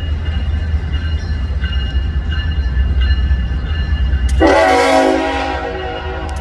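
Norfolk Southern diesel freight locomotives approaching with a low engine rumble; about four seconds in, the lead locomotive's air horn sounds a loud blast of several chords, cuts off briefly near the end and sounds again.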